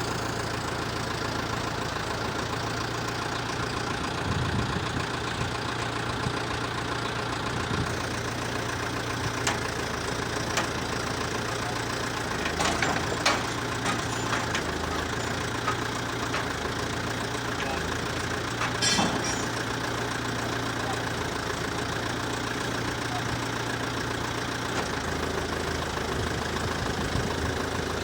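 An engine running steadily, with a few sharp clicks and knocks over it.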